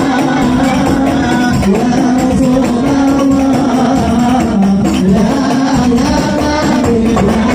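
A man singing an Islamic devotional song through a microphone and PA, accompanied by rebana frame drums and other hand drums keeping a steady beat.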